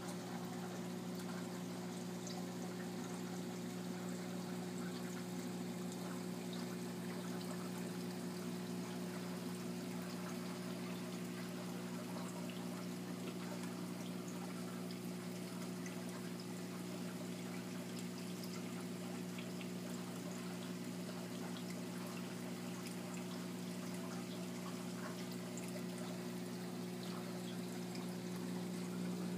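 Saltwater aquarium running: steady sound of circulating water with a constant low hum from the tank's pumps.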